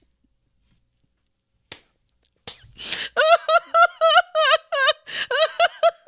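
A woman laughing hard into a close microphone. After a near-silent pause there is a sharp intake of breath, then high, squeaky laughter in quick pulses, about four a second.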